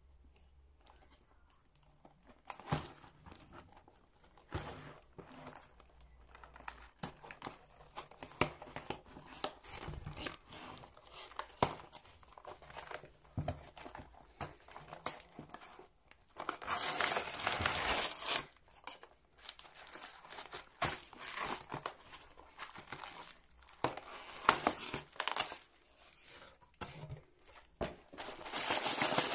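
Crinkling and tearing as a cardboard Celebrations box of wrapped mini chocolate bars is opened, with scattered taps and clicks. A longer, louder stretch of tearing and rustling comes about 17 seconds in, and another near the end.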